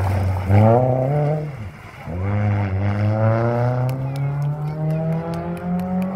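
Renault Clio rally car engine revving hard through a gravel corner. The pitch climbs, drops away sharply about a second and a half in, then climbs steadily again as the car accelerates off. Scattered sharp ticks come in the second half.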